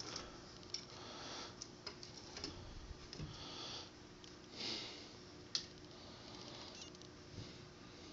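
Faint rustling and scuffing with a few small sharp clicks as a cat rolls on a carpeted stair, pawing at and biting a catnip toy.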